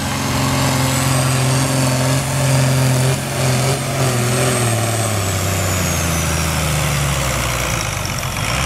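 Farm tractor's diesel engine running flat out while dragging a weight-transfer sled in a tractor pull. Its pitch sinks steadily over the second half as the engine is lugged down under the growing load, with a faint high whine falling along with it.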